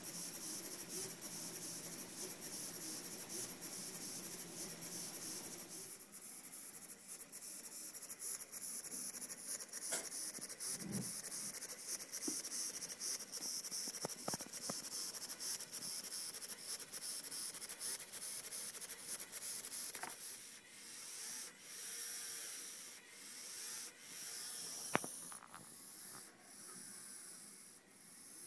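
Two small electric motors switched by an Arduino from MIDI sequencer notes, buzzing and scraping in short rhythmic pulses about three to four a second. Near the end they give way to slower swelling whirs every couple of seconds.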